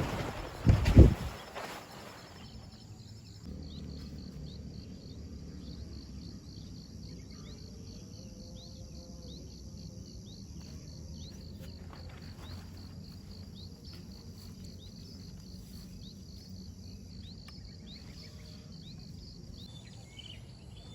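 Insects chirping in a steady high, rapidly pulsing trill, with short faint chirps scattered over a low background hum. A loud thump and brief rustle about a second in.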